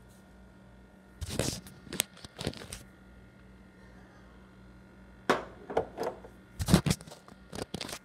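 Handling noise as a plush toy and a bird figurine are bumped and scraped against gas-stove grates: two clusters of sharp knocks, clacks and rustles, one about a second in and another about five seconds in.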